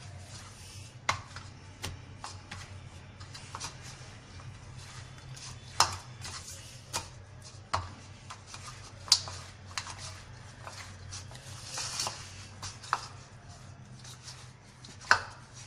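Hands kneading bread dough: irregular soft slaps and knocks, with a few sharper ones, over a faint steady low hum.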